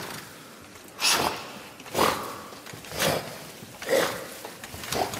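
Puppeteers voicing a horse's breathing for a life-size horse puppet: five short, breathy huffs, about one a second.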